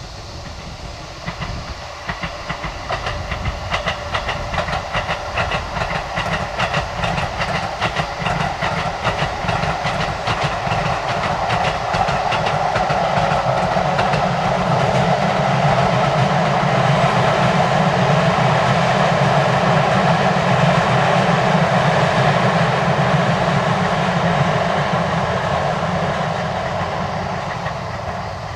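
Keisei 3100-series electric train passing close by: its wheels click rhythmically over the rail joints through the first half, then a steady rolling rumble builds to its loudest about two-thirds through and fades near the end.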